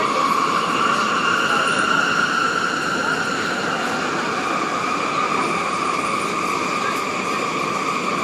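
Sendai Subway Tozai Line train running through a tunnel, heard from inside the car: a steady running rumble with a high whine laid over it, rising slightly in pitch in the first seconds and then holding level.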